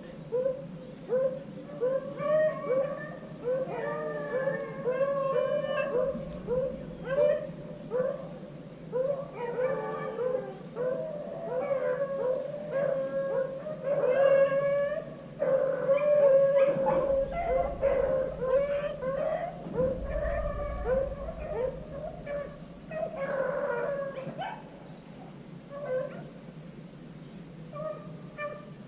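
A pack of beagles baying on a rabbit's trail: many short calls in quick succession, several dogs at once, overlapping throughout.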